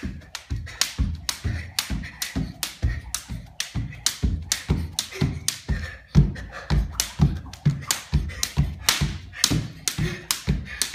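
A child skipping rope on a hardwood floor: the rope slaps the floor and the feet land in a steady rhythm, about three knocks a second.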